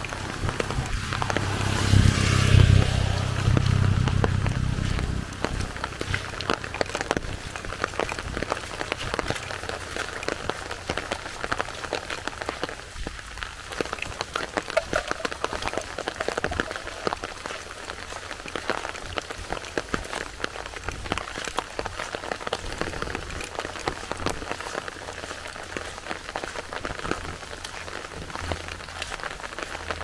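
Steady rain falling, with many irregular drops pattering on surfaces. Near the start a louder low rumble swells for a few seconds, then fades back into the rain.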